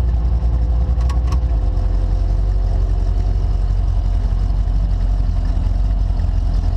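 Engine of the DirtKinetics Explorer running steadily at a low, even note while cruising. There are two short clicks about a second in.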